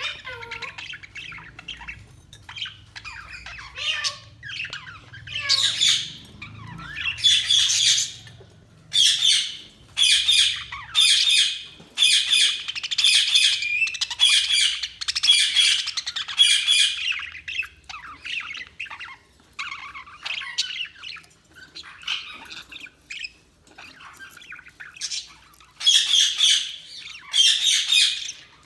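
Budgies (budgerigars) chirping and squawking, with bursts of loud, harsh calls and softer warbling chatter between them.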